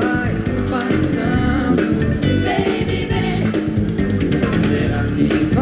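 Live pop band music with a sung vocal melody over a steady beat.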